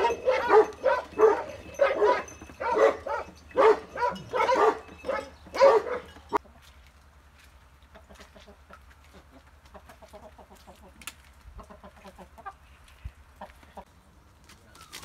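Chickens: a run of loud, rhythmic hen cackling, about two or three calls a second, that stops about six seconds in, followed by softer scattered clucks and light ticks.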